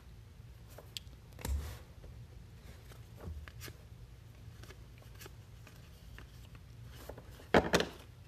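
Trading cards and packs being handled on a table: scattered light clicks and soft rustles, with a louder short double rustle or knock near the end.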